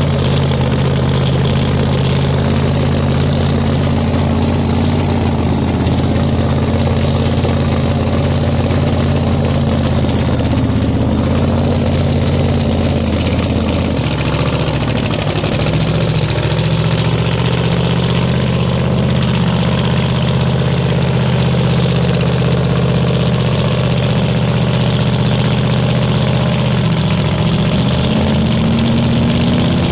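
Engines idling steadily, a low even drone; the pitch drops about halfway through and creeps up again near the end.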